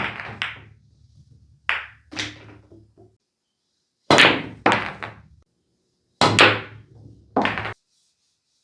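Pool balls clacking on a pool table: about seven sharp clacks, mostly in pairs half a second to a second apart, each pair trailing off in a short low rumble.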